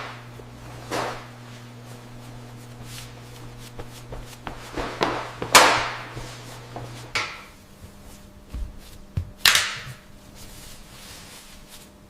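Steady low machinery hum that changes pitch about seven seconds in, with three sharp swishes and a few light clunks and clicks.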